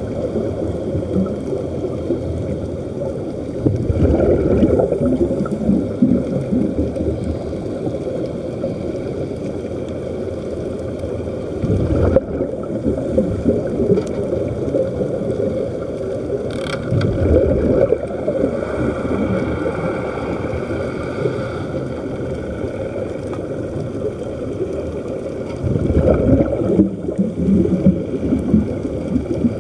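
Muffled underwater bubbling and rushing of air bubbles, heard through an underwater camera, with louder gushes about four times.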